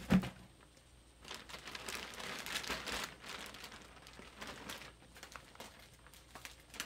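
A single thump right at the start, then a clear plastic bag crinkling and rustling as the bag wrapped around a packed paraglider wing is handled. The rustling is densest for a couple of seconds, then thins to scattered light crackles.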